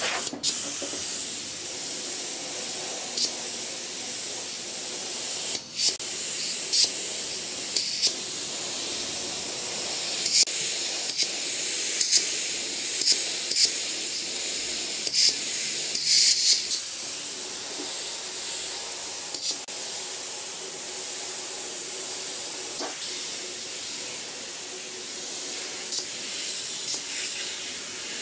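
Airbrush spraying paint: a steady hiss of compressed air, with short louder bursts now and then through the middle.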